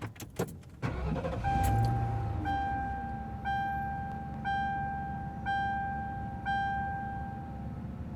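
Police car being started. A few sharp clicks come first, then the engine starts about one and a half seconds in and settles into a steady idle. Over the idle, a steady warning beep sounds about once a second, six times.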